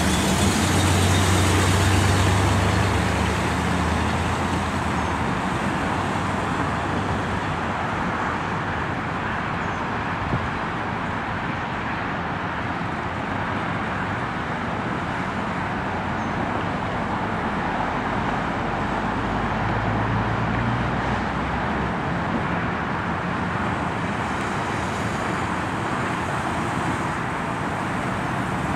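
1979 Dodge Li'l Red Express pickup's 360 V8 running as the truck drives slowly past through its vertical exhaust stacks. The engine is loudest at the start and again about twenty seconds in, over a steady background of road traffic.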